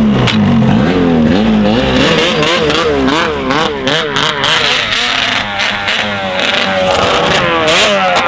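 Snowmobile engine revving hard as the sled accelerates toward a jump. Its pitch climbs, then wavers up and down with the throttle, and rises sharply again near the end as the sled leaves the ramp.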